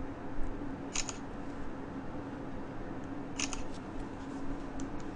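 Samsung Galaxy Note 7 smartphone playing its camera shutter sound twice, about two and a half seconds apart, as selfies are taken, over a faint steady hum.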